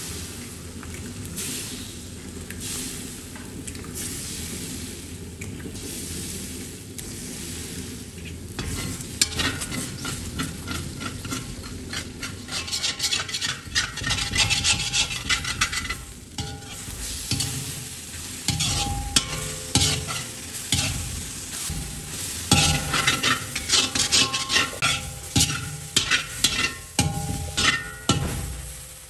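Eggs sizzling in hot oil in a black iron kadai. From about nine seconds in, a metal slotted spoon scrapes against the pan in quick, repeated strokes, scrambling the eggs into the onion-tomato masala over the continuing sizzle.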